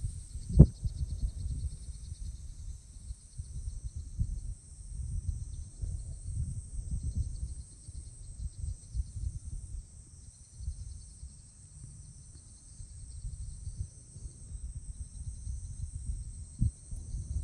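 Insects trilling in a steady high chorus over an uneven low rumble, with one sharp thump about half a second in.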